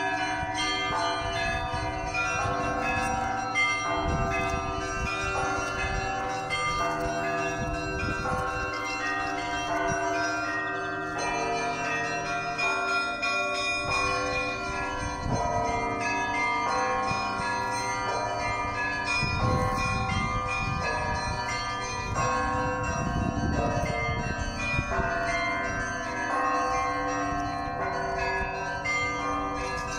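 Church bells of many different pitches struck in quick, continuous succession, their tones overlapping and ringing on, with deeper low strikes now and then.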